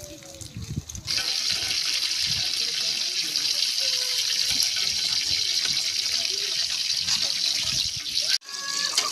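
Steady sizzling from a large aluminium pot over a wood fire as pieces of meat are dropped in by hand, starting about a second in and breaking off briefly near the end.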